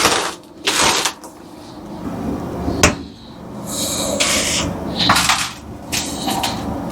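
A run of clunks and scraping, rustling noises from things being handled, with one sharp knock about three seconds in.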